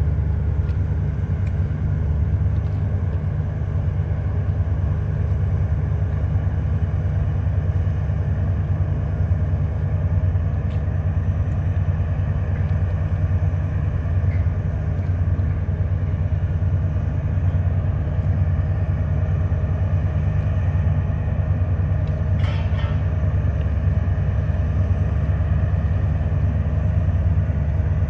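Wellboat's engines running as it manoeuvres onto the berth: a steady, unbroken low rumble.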